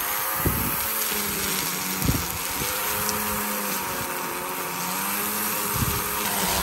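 String trimmer running steadily while cutting grass, its motor pitch wavering slightly up and down.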